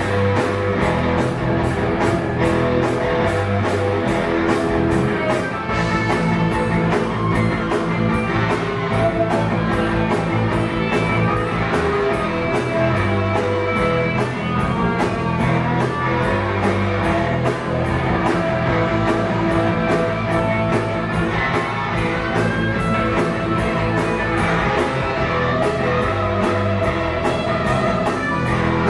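Live rock band playing an instrumental passage: electric guitars and bass over drums keeping a steady beat, with no vocals.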